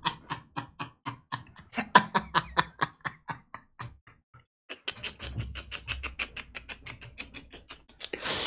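A rapid run of sharp ticks or clicks, about six a second, breaking off for about a second near the middle and then starting again.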